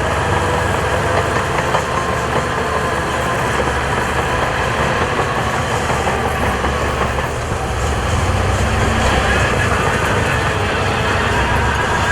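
Diesel engine of heavy earthmoving equipment running steadily, a deep rumble with a constant engine tone, somewhat louder about eight seconds in.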